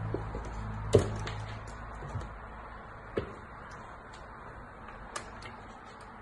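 A few short taps and knocks of a kitten's body and paws against a wooden floor as it twists and rolls about in a harness, the loudest about a second in, with a faint low hum in the first second or so.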